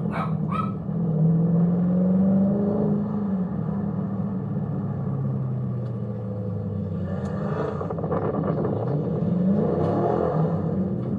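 Dodge Scat Pack's 6.4-litre HEMI V8 on the throttle, its note climbing over the first few seconds, easing back down through the middle and climbing again near the end.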